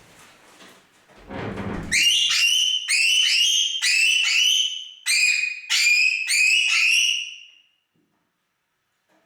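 Jardine's parrots (Poicephalus gulielmi) calling loudly with the owner out of the room: about a dozen short, high-pitched calls in quick runs, each falling slightly at its end. This is the loudest these birds get. A short muffled noise comes just before the calls start.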